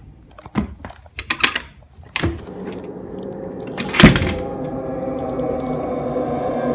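Clicks and knocks of a wooden floor trapdoor being pulled open by its recessed pull. About two seconds in, a steady eerie music drone sets in, and one sharp bang comes about four seconds in.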